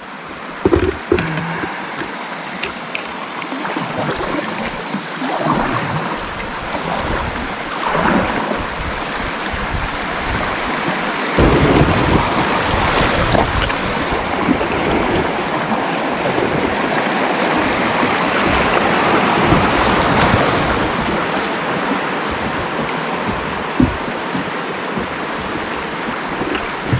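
Rushing river water splashing around a kayak as it runs a riffle, swelling louder about eleven seconds in, with a few knocks against the hull.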